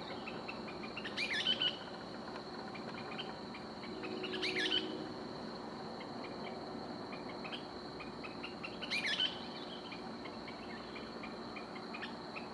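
An unidentified bird giving its pre-dawn call three times, about four seconds apart: each a short burst of quick, looping chirps. The recordist suspects a kingbird. A steady high insect trill runs underneath.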